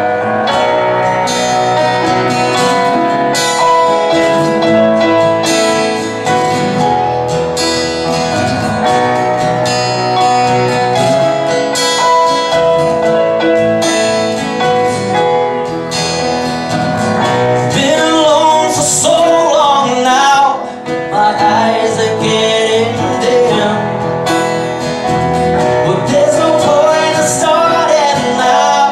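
Live acoustic ballad: a steel-string acoustic guitar picked, with keyboard piano chords underneath. A male voice starts singing about two-thirds of the way in.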